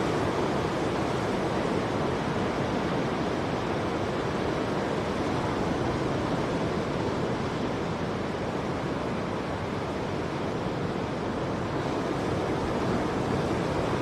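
Ocean surf breaking along a beach: a steady, even wash of waves with no single crash standing out.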